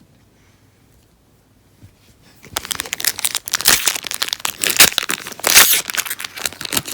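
A Pokémon booster pack's foil wrapper crinkling loudly and being torn open, starting about two and a half seconds in after a quiet stretch.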